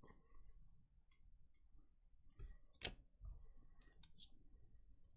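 Faint handling of trading cards: light slides and small ticks as a stack of cards is gathered and squared, with one sharp click about three seconds in.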